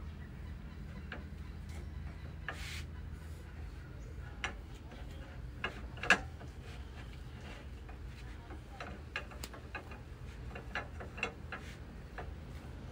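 Irregular small clicks and taps as a kitten bats at and bites a hanging rope, its claws catching on the rope and tapping the tiled floor, with a louder tap about six seconds in. A steady low hum sits underneath.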